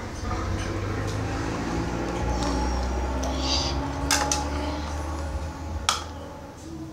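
Light clicks and knocks of plastic toy fish and a toy fishing rod against a plastic basin, with small splashes of water from a hand in it, over a steady low hum. The sharpest clicks come about four seconds in and again near six seconds.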